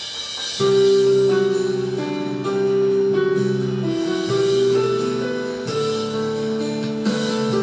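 Instrumental intro of a gospel worship song: sustained chords that change every second or so, with shorter plucked or struck notes over them. It fades in and jumps up in level about half a second in.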